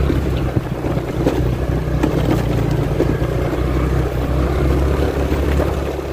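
Motorbike engine running steadily while riding along a rough gravel track, with wind on the microphone and a few scattered clicks and knocks.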